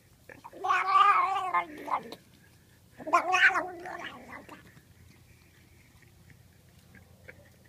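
Domestic cat making two drawn-out, wavering calls, each over a second long, the second starting about three seconds in. It is the funny sound the cat makes while being scratched, which it loves.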